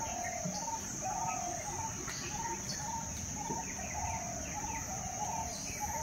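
Forest ambience: birds calling, one giving a short note over and over about twice a second with other chirps scattered above it, over a steady high insect drone.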